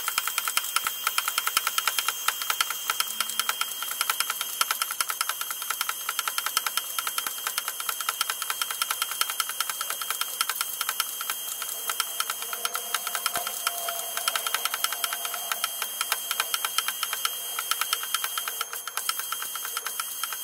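Small motor-driven mechanism running with a fast, steady rattle and a faint high whine, while the altimeter is driven through its range on the test bench.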